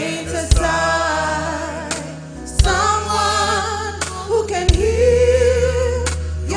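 Church worship team singing a gospel hymn together, with a woman's voice leading, to a live band with drums; the drum strikes about every two seconds under held sung notes.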